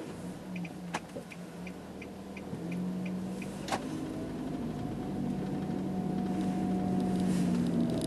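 A car's engine heard from inside as the car pulls away and gathers speed, the sound slowly growing louder. A light ticking about three times a second runs through the first three seconds or so, and there is a single sharp click a little before halfway.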